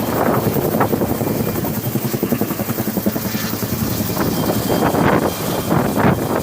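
Bell 212 helicopter at close range, its two-bladed main rotor beating steadily with a loud, fast thudding, under the whine of its turbine engines.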